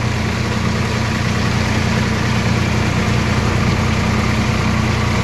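Tractor's diesel engine running steadily at a constant speed, heard close up from the driver's seat as the tractor works a flooded paddy field.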